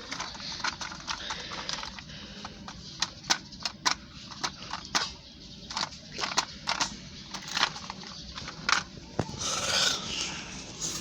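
Hard plastic toy animals being handled, clicking and clacking irregularly against each other and a surface, with a short rustle near the end.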